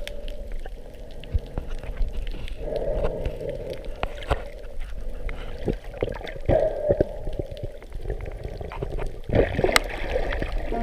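Muffled underwater noise heard through a camera's waterproof housing: a dull rush of water that swells and fades a few times, with many scattered sharp clicks.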